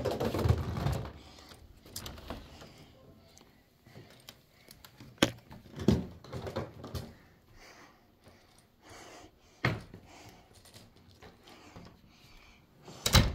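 Scattered soft knocks, clicks and rustling of a person coming into a house and moving about: a door and handling of the phone, with sharp clicks about five, ten and thirteen seconds in. Background music fades out in the first second.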